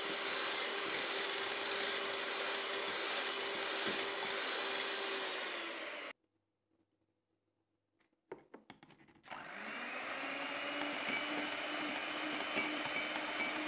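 Electric mixer beating egg whites in a glass bowl, a steady motor whine that sags slightly before cutting off about six seconds in. After a short silence and a few clicks, the mixer starts again in egg yolks, spinning up to a steady whine with its beaters ticking against the glass bowl.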